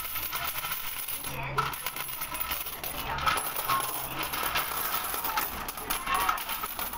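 Coins pouring in a steady stream out of the slot of a tipped terracotta clay coin pot, clinking and jingling as they land on a pile of coins.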